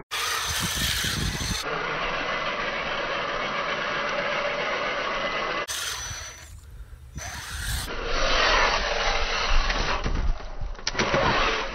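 Scale RC truck driving through water and mud: its electric motor runs while the tyres splash and churn. The sound changes abruptly at several cuts and drops briefly about six seconds in.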